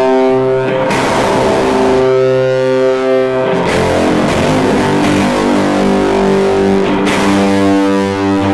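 Electric guitar through an EarthQuaker Devices Fuzz Master General fuzz pedal on its third setting, into a miked Fender Deluxe Reverb amp. It plays loud, thick fuzzed chords held for a few seconds each, with changes about a second in, partway through and near the end.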